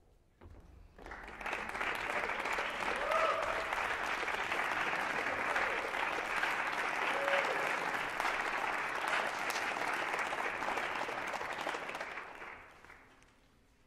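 Audience applauding, swelling up about a second in, holding steady, and dying away near the end.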